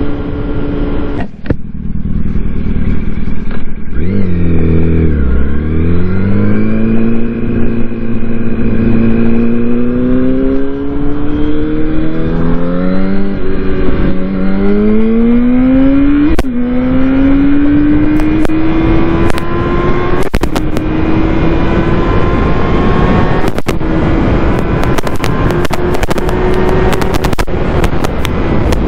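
Yamaha R1 inline-four sportbike engine heard from the rider's position over steady wind rush. Its note drops about four seconds in as the bike slows, then climbs several times with short dips between, each climb an upshift under acceleration, and settles into a steady cruise. Sharp crackles come many times in the last third.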